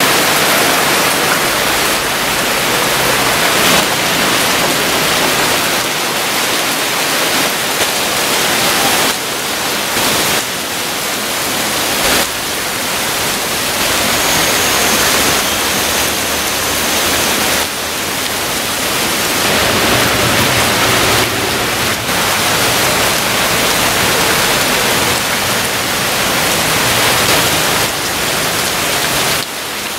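Heavy rain pouring onto a road, a loud steady hiss that changes abruptly several times.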